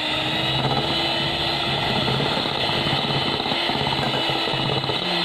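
Electric hand mixer running on low speed, its beaters working crumbly butter-and-flour cookie dough in a glass bowl. The motor whine is steady and starts winding down at the very end as it is switched off.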